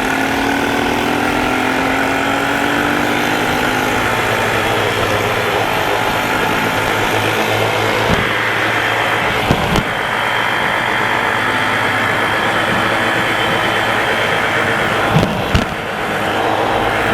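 ATV engine running steadily while riding, its pitch rising a little at first and then holding. A few short knocks are heard about halfway through and again near the end.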